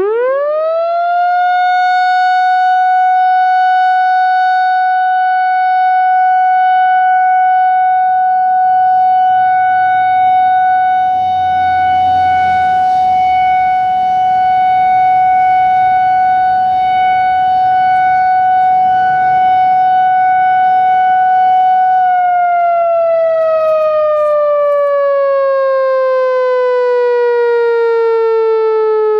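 Whelen WPS-4004 electronic outdoor warning siren sounding its steady Alert tone. It winds up within about two seconds to one held pitch and starts to wind down, falling in pitch, about 22 seconds in.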